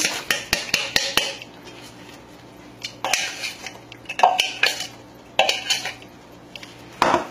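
White plastic measuring cup knocking and scraping against a stainless steel mixing bowl as chopped raisins are tapped out of it into the batter: a quick run of clicks at first, then several short scrapes and knocks.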